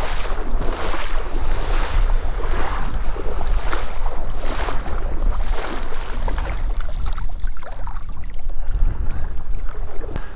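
Wind rumbling on the microphone over water. In the first half, water swishes roughly once a second, then eases off.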